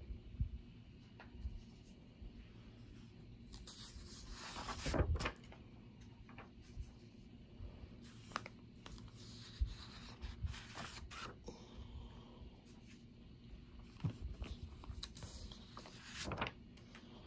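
Paper sheets being handled and flipped over, with soft rustles and small knocks and a louder rustle of a page turning about five seconds in and again near the end.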